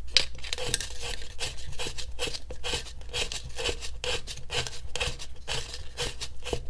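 Leather lace being drawn and worked through the braided stitches and punched holes of a dried gourd's rim, with fingers pressing the braid: a quick, uneven run of short rubbing, scratching strokes.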